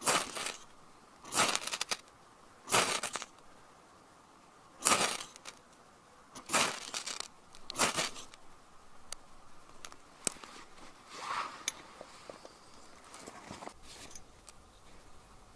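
Ferro rod struck about six times onto a pile of wood shavings, each strike a short harsh rasping scrape. After the last strike the shavings catch, with faint scattered crackles and ticks.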